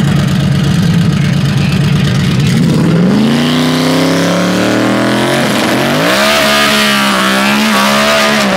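A drag-race pickup truck's engine idling with a choppy, lopey beat, then revving up about three seconds in and held at high revs. From about halfway, tire noise joins it as the rear tires spin in a burnout.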